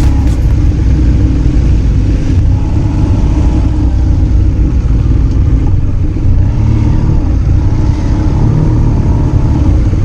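Motorcycle running at road speed with a steady low engine and wind rumble, as heard from the moving bike.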